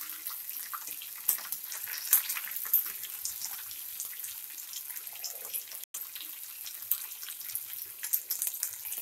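A tempering of peanuts, chana dal, curry leaves, green and dried red chillies, cumin and mustard seeds frying in oil in a nonstick kadai: a steady sizzle with frequent sharp crackles and pops. The sound cuts out for an instant about six seconds in.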